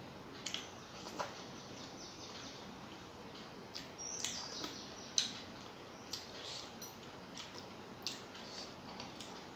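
Quiet sounds of eating by hand: fingers picking and scraping food off a plate, and soft wet mouth clicks while chewing. A few short high chirps are also heard, one of them falling in pitch about four seconds in.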